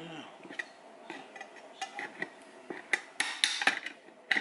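A metal spoon scraping and clinking against the inside of a partly opened tin can, scooping out canned red beans. It starts as scattered light clicks and builds to a quicker run of louder clinks and scrapes in the last second and a half.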